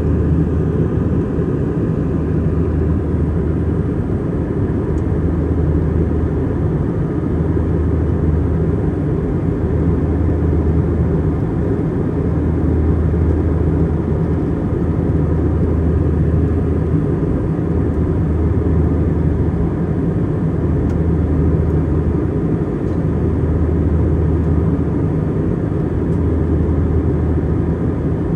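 Airbus A320 cabin noise: the steady drone of the twin jet engines and rushing air. A low hum in it swells and fades about every two seconds.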